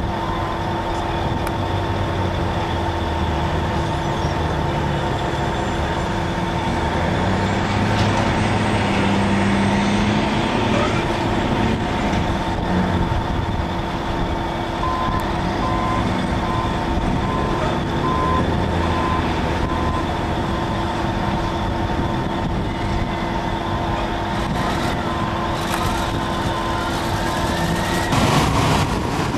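Caterpillar 631E wheel tractor scraper's diesel engine running under load as the machine drives, with a steady mechanical whine over the engine noise; the engine note rises for a few seconds about eight seconds in.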